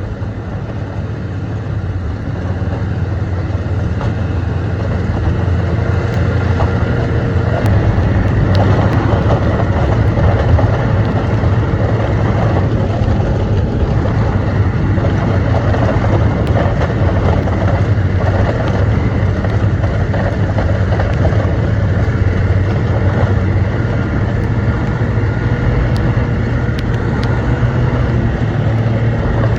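Snowmobile towing a loaded toboggan, engine running steadily at travel speed with a low hum under the rush of the track and wind; it grows louder over the first few seconds, then holds.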